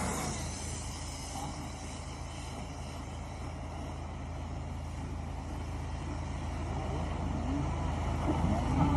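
A motor running with a steady low hum, growing louder over the last few seconds.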